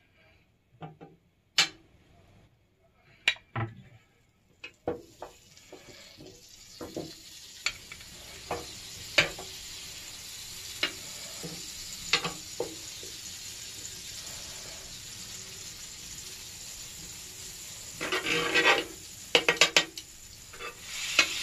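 Butter beginning to sizzle on a hot ridged grill pan, the hiss coming in a few seconds in and building as the pan heats. Metal tongs click and scrape on the pan throughout as they push the butter pats over the ridges, with a burst of clattering scrapes near the end.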